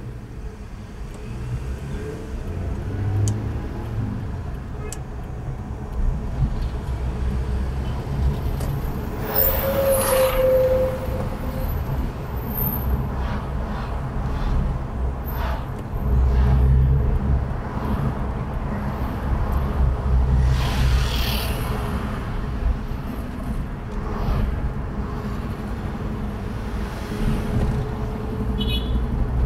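Road traffic heard from a car driving through city streets: a steady low engine and road rumble, with vehicles passing close by about ten seconds in and again around twenty seconds.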